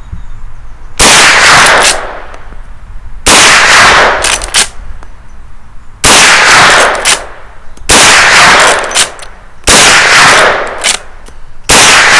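Chiappa Wildlands lever-action rifle in .357 Magnum fired six times, about one shot every two seconds, each loud report ringing out after the crack. Between shots come shorter metallic clicks as the lever is worked to eject and chamber the next round.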